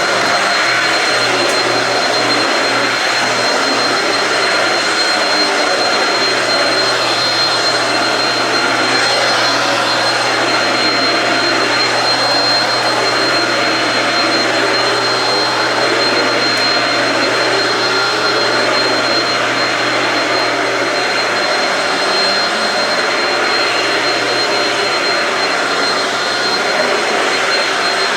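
Shark Rocket stick vacuum with DuoClean running steadily on carpet: an even rushing noise with a thin, high, steady whine over it.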